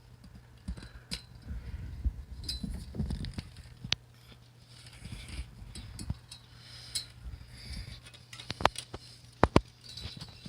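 Scattered small clicks, taps and rustles of hands fitting a bicycle light strip onto a bike frame, with a few sharper clicks near the end, over a faint steady low hum.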